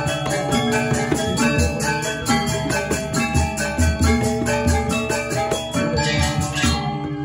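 Balinese gamelan gong ensemble playing: rapid, even strokes on bronze metallophones over held ringing pitches, with low drum and gong beats underneath. The fast high strokes thin out about six seconds in.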